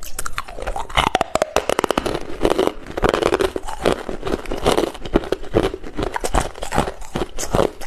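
Hard ice being chewed close to the microphone: a dense run of rapid, sharp crunches and crackles, starting suddenly.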